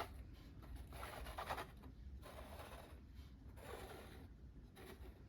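Faint handling noise: a plastic prize figure being turned over in the hands, with a few short bouts of rubbing and scraping.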